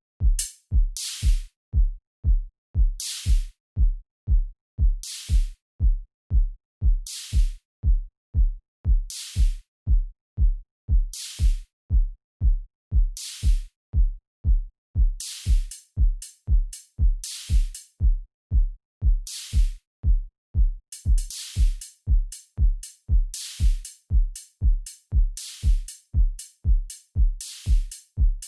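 Electronic drum loop of a deep house beat: a four-on-the-floor kick drum at about two beats a second, with a bright snappy hit like a clap about every two seconds. From about halfway, extra higher percussion hits join and the pattern gets busier.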